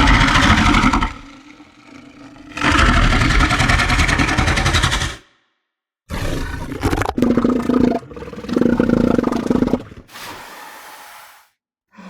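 Southern elephant seals calling: a series of loud, deep, throaty calls, some with a rapid pulsing rattle, separated by short silences.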